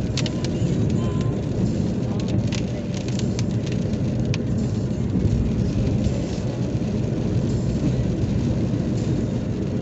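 Steady low road and engine noise inside a moving car's cabin. Scattered sharp ticks of rain hit the car in the first half.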